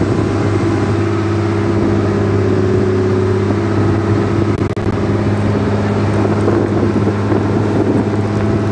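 Fishing boat's engine running steadily, a loud, even drone.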